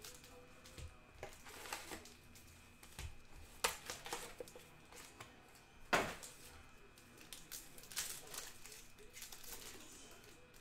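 Sports card boxes and packs being opened by hand: scattered crinkling and tearing of wrappers and cardboard, with a few sharp snaps, the loudest about six seconds in.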